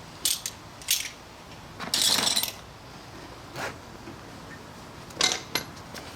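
Metal hand tools clinking and clattering as they are picked up and set down, about six separate knocks with a brief scrape about two seconds in.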